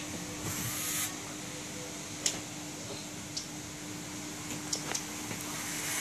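Quiet room ambience with a steady low hum, a brief hiss about half a second in, and a few short, sharp clicks scattered through the rest.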